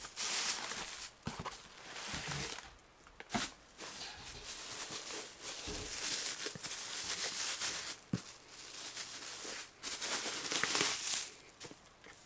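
Thin clear plastic bag crinkling and rustling in bursts as hands pull it off a cardboard box, with a few light knocks.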